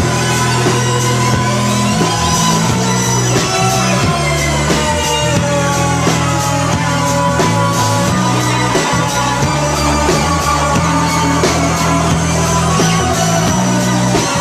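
Rock band playing live, an instrumental passage with sustained electric guitar notes over bass and drums.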